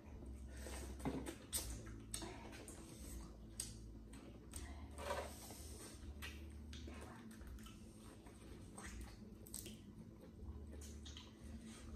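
Eating sounds: chewing and biting into corn on the cob and peeling boiled crawfish shells by hand, with many small scattered clicks and crackles and a few louder snaps.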